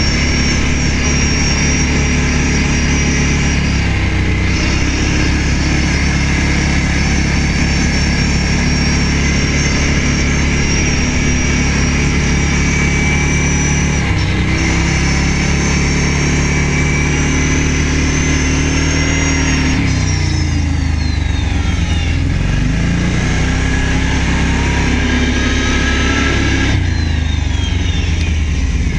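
Quad (ATV) engine running steadily under way, its note dipping briefly a few seconds in and again about halfway, then falling and climbing again about two-thirds of the way through.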